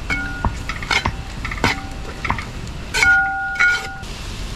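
A metal spoon stirring in a cooking pot, knocking and scraping against the pot's sides in a run of uneven clinks, with a louder clatter about three seconds in.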